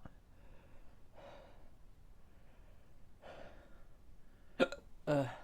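A man breathing heavily through the burn of a Carolina Reaper pepper: slow sighing breaths about every two seconds, then near the end a sudden sharp catch of breath and a short groan falling in pitch.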